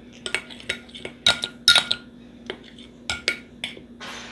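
A spoon clinking against a bowl, about eight irregular taps, while stirring a slime mixture.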